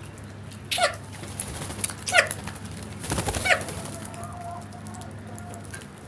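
Crows of a flock cawing: three loud caws spaced about a second and a half apart, over fainter calls.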